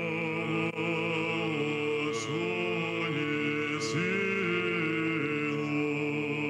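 A choir singing slow Orthodox chant in long held chords that move from one to the next every second or so.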